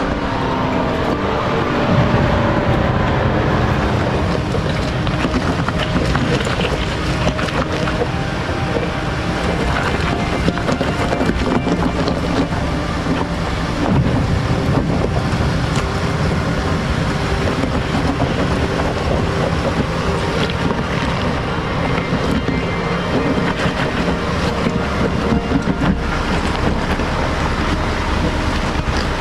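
Jeep Grand Cherokee driving a rocky off-road trail: the engine runs steadily under many small clicks and knocks of tyres and chassis working over rock.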